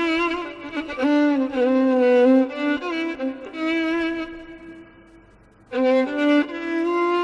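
Background music: a violin playing a slow melody of long held notes that slide from one pitch to the next, breaking off briefly about five seconds in before resuming.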